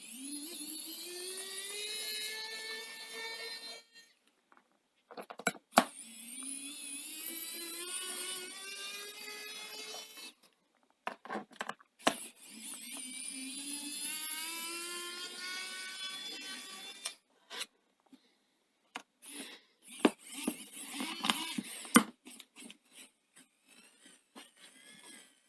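Small electric screwdriver whirring in three runs of about four seconds each, its pitch rising as it spins up, as it backs out screws. Scattered light clicks and knocks follow near the end.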